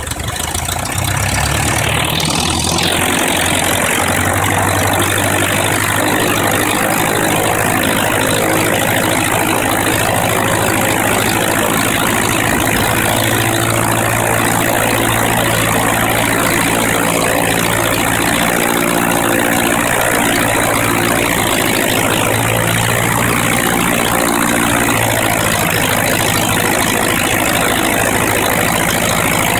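Freshly rebuilt Lycoming O-320 four-cylinder air-cooled aircraft engine being run up on a test stand, propeller turning. It gets louder about a second in, then runs steadily.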